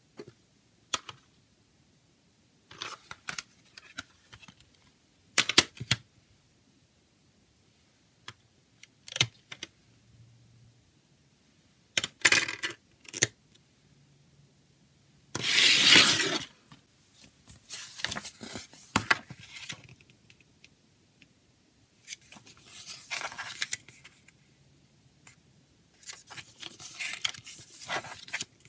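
A plastic CD jewel case being handled and opened: scattered sharp clicks and taps of the plastic case, then a louder scraping about halfway as the paper booklet is slid out of the lid. After that come stretches of soft paper rustling as the booklet's pages are turned.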